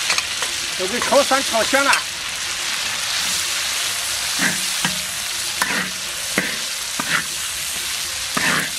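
Chili paste sizzling as it fries in hot oil in a large wok. A metal ladle stirs and scrapes through it, knocking against the wok several times in the second half.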